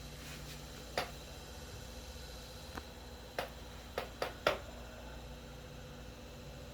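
FoodSaver vacuum sealer's pump motor running steadily as it draws the air out of a bag of pork, with about six sharp clicks over it in the middle of the stretch.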